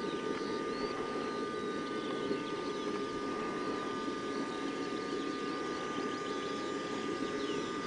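A steady mechanical hum with a thin, steady high whine over it, and many short faint chirps higher up.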